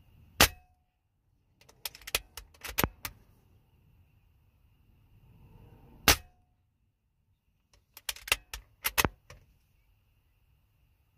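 Diana Stormrider .22 precharged pneumatic air rifle firing two shots about six seconds apart. A second or two after each shot comes a quick run of mechanical clicks, which fits the bolt being cycled to chamber the next pellet from the magazine.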